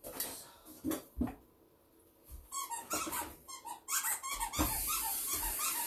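Kitchen tap running to fill a cup with water, the rush of water starting about four seconds in. A run of short high whines, several a second, comes just before and over it.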